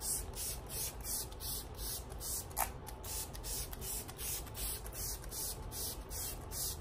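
Smashbox makeup setting spray pumped rapidly at the face: a fast train of short mist spritzes, about four a second. A brief rising squeak comes about halfway through.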